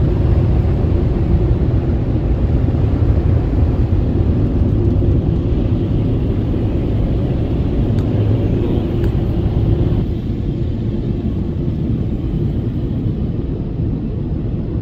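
Drive-through car wash machinery running, a steady, loud rumbling noise heard from inside the car's cabin. It drops a little about ten seconds in.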